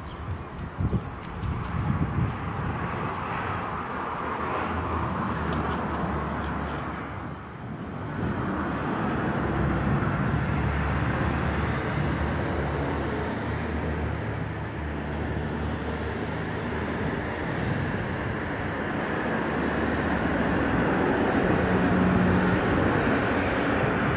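Outdoor ambience: a steady low rumble and hiss, with an insect's high chirp repeating evenly about two or three times a second.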